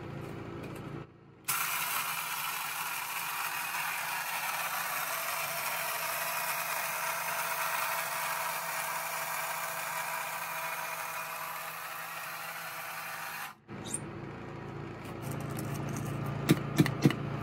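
Cordless battery-powered blade coffee grinder grinding whole coffee beans: a steady whir that runs about twelve seconds and cuts off suddenly. A few sharp clicks near the end as the grinder's lid and cup are handled.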